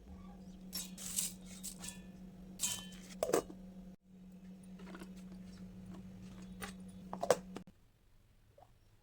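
Kitchen handling sounds during food preparation: scattered clicks, knocks and short scrapes over a steady low hum. The hum stops shortly before the end.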